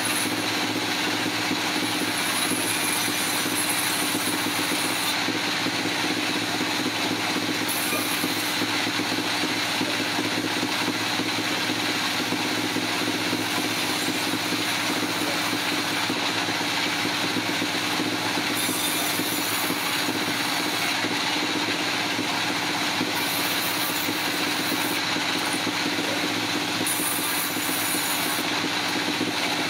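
Sawmill machinery running steadily: a loud, unchanging mechanical noise with a constant hum.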